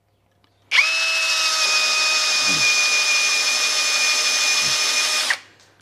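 Cordless 18V drill in low gear at maximum torque, boring into a block of wood with an auger bit: the motor starts under a second in, runs with a steady whine at constant pitch under the chewing of the bit, and stops a little after five seconds.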